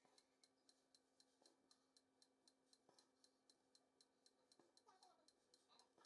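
Near silence, with faint quick even ticking at about five ticks a second.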